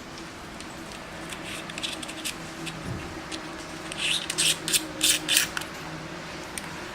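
Hands fitting a battery into a small camcorder shotgun microphone: short plastic scrapes and clicks, clustered most loudly from about four to five and a half seconds in, over a faint steady hum.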